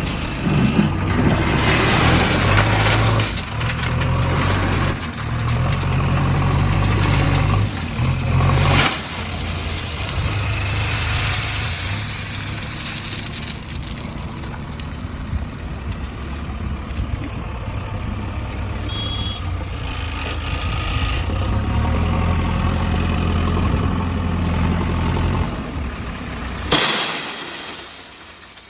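Heavy diesel machinery engine running, its revs rising and falling over the first several seconds, then steadier. A sharp thump near the end, after which the engine sound drops away.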